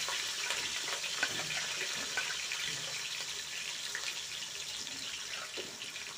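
Sliced onions and shallots sizzling in hot oil in a pot: a steady hiss with a few light clicks.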